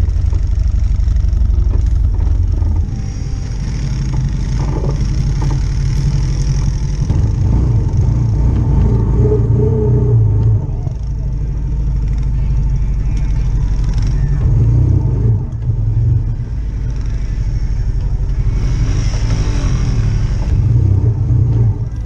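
ATV engine running close to the microphone, a steady low rumble with slight rises and falls in level.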